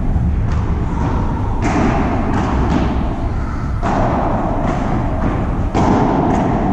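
Padel rally: a run of sharp knocks as the ball is struck by paddles and bounces off the glass walls and court, roughly one every half second to a second, each with a short echo, over a steady low rumble.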